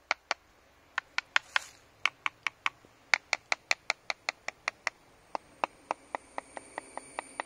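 Light, rapid tapping on a stingless bee hive box, about four to five taps a second with a couple of short pauses, done to make the bees fly up off the honey pots before harvesting. A faint steady high whine comes in during the second half.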